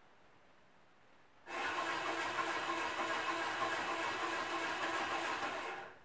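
Small electric gear motor of the animatronic bird running steadily for about four seconds, switching on abruptly about a second and a half in and cutting off suddenly near the end: one timed motor cycle from the control module.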